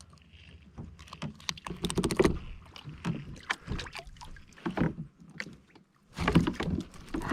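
Irregular knocks, clicks and scrapes of handling on a fishing kayak just after a wahoo is landed, in clusters about two seconds in and again near the end.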